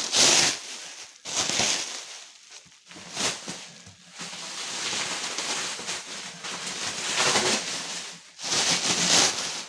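Plastic stretch wrap being pulled and unwound off a rolled mattress, crinkling and crackling in irregular bursts. The loudest bursts come at the very start, about a second and a half in, and near the end.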